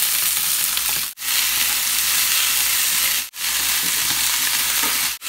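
Sliced carrot, potato and leek sizzling in hot oil in a stainless steel frying pan as they are tipped in and stirred: a steady frying hiss. The sizzle cuts out for an instant three times.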